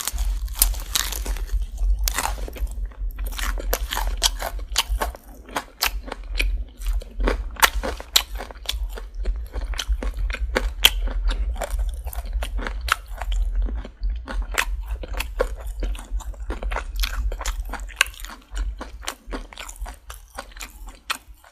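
Close-miked chewing of crispy Popeyes fried chicken, many sharp, irregular crunches of the breading, with a steady low hum underneath.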